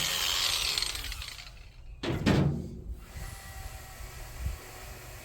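A power tool that has been cutting metal stops, and its motor winds down over the first couple of seconds. About two seconds in comes a brief clatter as the piece is handled.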